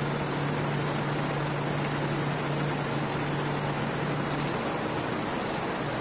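Electric pedestal fan running with a plastic bag tied over its front guard: a steady rush of air with a low hum, as the spinning blades fling the sprayed-on cleaning mixture and dirt into the bag. The hum weakens about four and a half seconds in.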